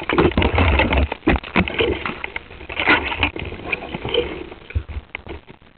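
Irregular knocking and rattling on an RC boat's hull, picked up by its onboard camera, with a low rumble in the first second; the knocks thin out and die away near the end.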